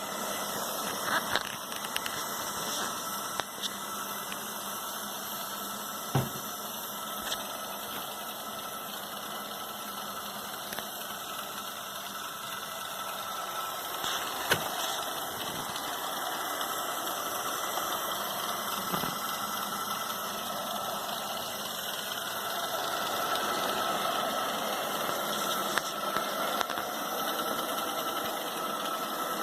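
ILIFE V5s Pro robot vacuum running: a steady whirr from its motor and brushes, with a few sharp knocks, the loudest about fourteen seconds in.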